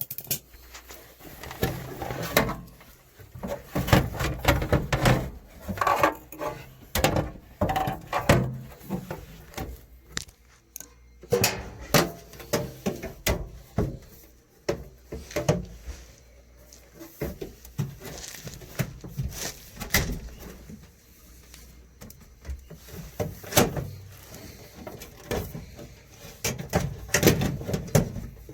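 Irregular knocks, clicks and rustling clatter of parts and tools being handled, in quick clusters with short pauses between.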